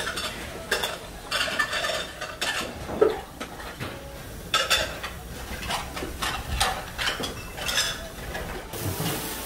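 Gloved hands mixing and turning a pot of cooked rice in a metal pot: irregular rustling and scraping against the pot's sides, with a sharper knock about three seconds in.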